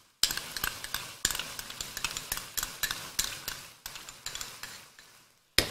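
Metal spoon clinking and scraping against a pan as yogurt is added to cooking minced beef and stirred in, over a sizzle that fades away. A single sharp knock near the end.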